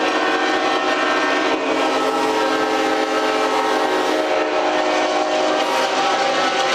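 Many train air horns blasting at once, layered into one loud, dense, continuous chord of clashing pitches that never breaks.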